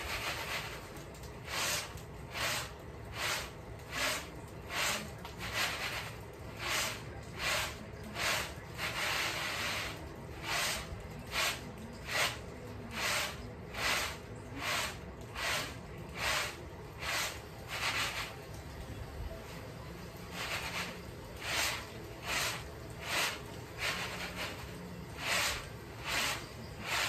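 Peanuts and loose peanut shells swishing across a round woven winnowing tray as it is tossed and shaken in a steady rhythm, a little over one stroke a second, to winnow the shells from the nuts. The strokes pause for a couple of seconds about two-thirds of the way through, then start again.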